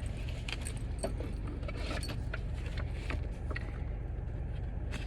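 Tarot cards being shuffled and handled: scattered light clicks and crackles, over a steady low hum.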